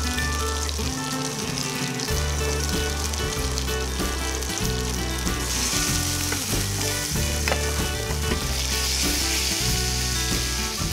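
Leftover masala oil sizzling in a nonstick frying pan, with a spatula stirring it. The sizzle swells about halfway through and again near the end, over background music with steady bass notes.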